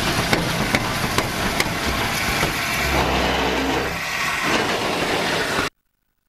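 Steam locomotive at close range, a loud steady hiss of steam with sharp metallic clanks and clicks about two or three a second, and a low rumble part-way through. The sound cuts off suddenly near the end.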